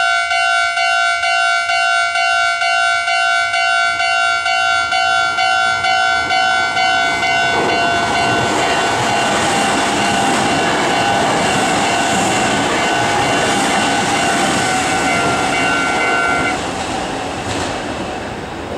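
Level crossing warning bell ringing in a steady quick rhythm, about two strokes a second. A Meitetsu 3050 series electric train's running noise comes in about halfway through and runs loud over the bell. The bell stops a couple of seconds before the end while the train noise carries on and begins to fade.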